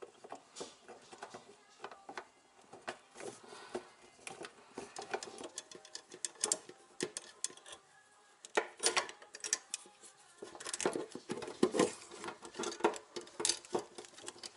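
Pliers and hands working the old faucet's mounting fittings under a stainless-steel kitchen sink: irregular metal clicks, taps and scrapes, some with a short ring from the sink bowl. The clicks come in louder clusters about two-thirds of the way through and near the end.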